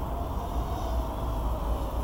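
Steady outdoor ambient noise: a low rumble with a faint, slightly wavering hum above it and no distinct events.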